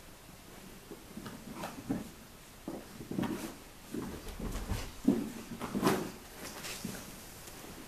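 Savannah cats scrambling and pouncing after a string toy: an irregular run of soft thumps and scuffs from paws landing on carpet and a mattress, with a heavier thud a little after four seconds and the sharpest knocks about five and six seconds in.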